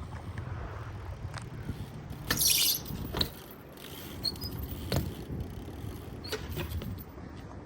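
BMX bike being ridden: a low rolling rumble of the tyres with scattered sharp clicks and knocks, a short hiss about two and a half seconds in, and a few small high squeaks.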